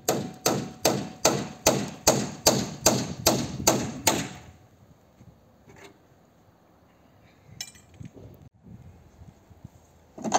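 A hammer pounding in a steady rhythm, about two and a half blows a second, each blow ringing briefly. The run of about a dozen blows stops around four seconds in. A light clatter follows near eight seconds, and one more blow lands at the very end.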